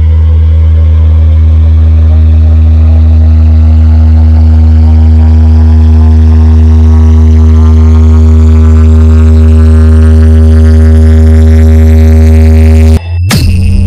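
Electronic sound-check bass track: a loud, deep, sustained bass drone whose upper tones sweep steadily upward. Near the end it cuts out abruptly, and a sharp hit brings in a new bass tone.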